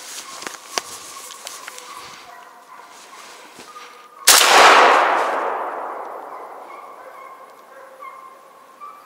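A single loud shotgun shot about four seconds in, its echo dying away through the forest over about two seconds. A few light clicks and rustles of movement come before it.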